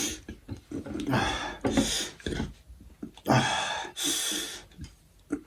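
Mouth sounds of a person eating spicy instant noodles: several short, breathy slurps and sharp breaths between mouthfuls, with chewing.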